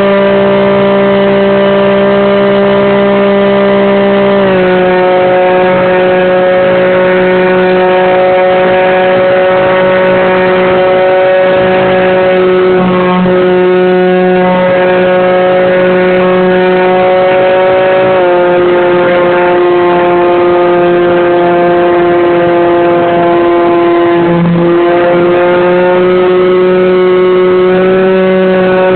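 Electric motor and propeller of an R/C model Cessna 182, heard close up from a phone mounted on the plane's side: a loud, steady whine with throttle changes. The pitch drops slightly about four seconds in and again about two-thirds through, dips briefly, then rises twice near the end.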